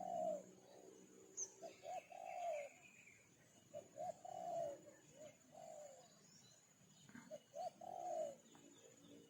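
A dove cooing: about four phrases, each of two short notes followed by a longer drawn-out coo, repeating every second and a half to two seconds. Faint chirps from smaller birds sound in the background.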